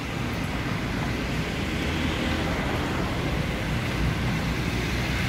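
A car driving past close by on the street, its engine and tyre noise growing louder toward the end.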